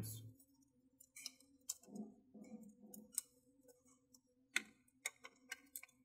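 Light, scattered clicks and taps of small plastic and metal laptop parts being handled: a 2.5-inch hard-drive caddy and its SATA adapter cable, with a little soft rustling, over a faint steady hum.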